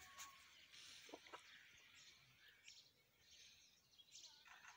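Near silence: faint outdoor ambience with a few faint, scattered bird chirps.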